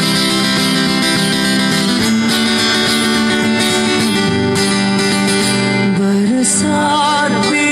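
Acoustic guitar playing an instrumental break in a live guitar-and-vocal performance. A male voice comes back in, singing, near the end.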